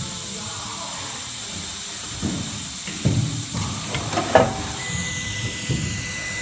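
CNC router machine running with a steady hiss, a few knocks in the middle, and a steady high whine that starts about five seconds in.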